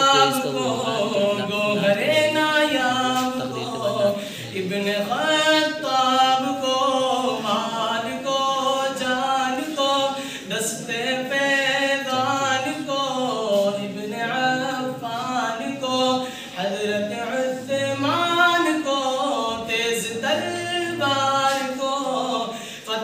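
A man's voice singing a naat unaccompanied, in long phrases whose pitch rises and falls, with no instruments.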